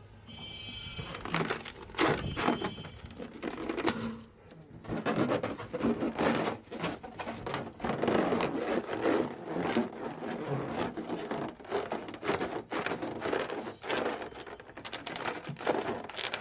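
Rubber balloons being handled: a run of crinkling and rubbing noise broken by many sharp snaps, with brief squeaks in the first few seconds.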